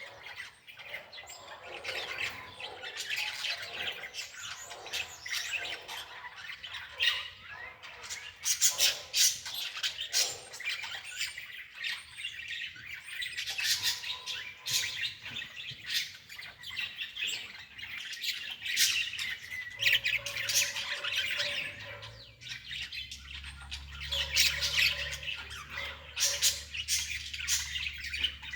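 Birds chirping and squawking continuously, mixed with many short clicks, with a low steady hum joining about two-thirds of the way through.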